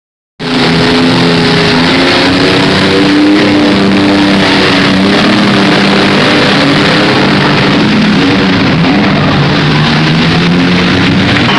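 Several demolition-derby minivan engines running and revving loudly together, their pitches shifting up and down over a dense rush of noise. The sound cuts in suddenly about half a second in.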